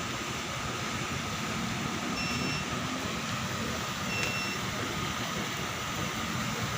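Steady background hum and hiss with two short, high electronic beeps about two seconds apart.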